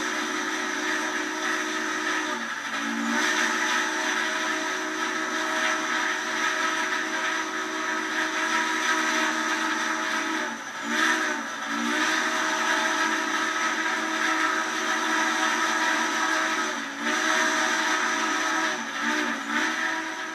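A train whistle blowing a long, loud chord of several steady tones, bending or breaking briefly a few times before sounding again.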